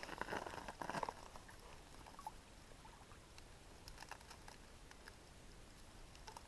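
Faint rustling and a few small ticks, loudest in the first second, then mostly quiet.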